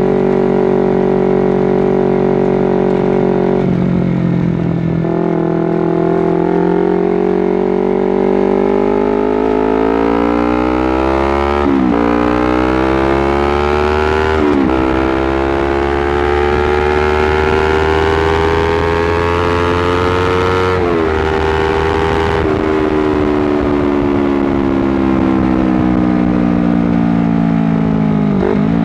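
Honda CBR250RR motorcycle engine under way: it holds a steady note, then accelerates with the pitch climbing through three quick upshifts, each a sudden dip in pitch, before the throttle is eased and the engine note falls steadily as the bike slows.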